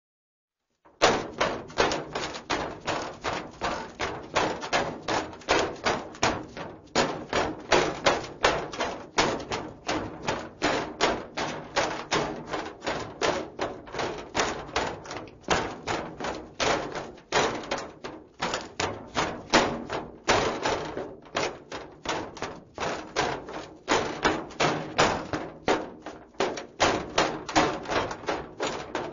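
Footsteps of a man in hard-soled, heeled shoes running on a metal surface, a rapid steady run of clanking steps with a metallic ring. The steps start about a second in and keep an even pace, with a few short gaps.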